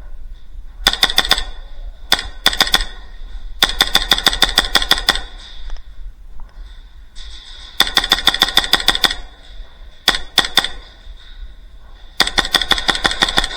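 Airsoft gun firing in about seven rapid full-auto bursts, some short and some over a second long, with gaps between them. The longest run comes about four seconds in.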